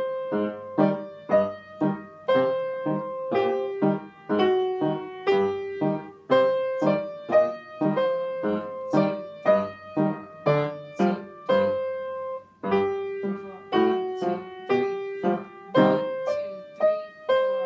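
Upright piano played four hands as a duet, a boogie-style piece with evenly spaced notes in a steady rhythm.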